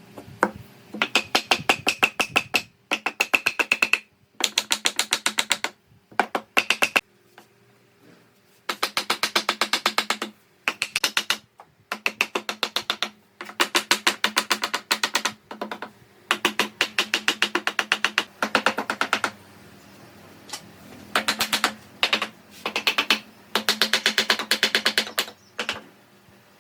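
Rapid mechanical tapping in repeated bursts of one to two seconds, with short pauses between, over a faint steady hum.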